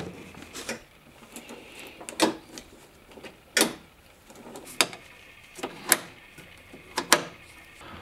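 Porsche 944 outside door handle and latch linkage clicking as the handle is worked: a series of short, sharp mechanical clicks, roughly one every second or so, some in close pairs. The reconnected linkage is working again after the repair.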